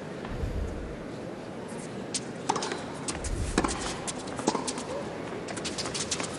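Tennis serve and rally on a hard court: sharp racket strikes on the ball about once a second, with ball bounces and the players' footsteps in between.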